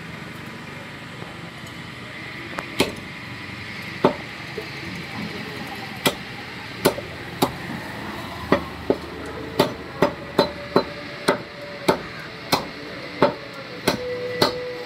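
Heavy butcher's knife chopping a chicken into pieces on a wooden log block. About seventeen sharp chops begin a couple of seconds in, sparse at first, then coming about two a second.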